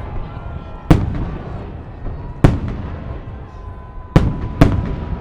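Salute fireworks shells bursting: four sharp bangs, the last two close together, with a low rolling rumble between them.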